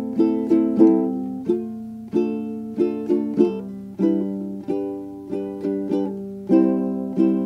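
Instrumental background music of plucked-string chords, each one struck sharply and fading away.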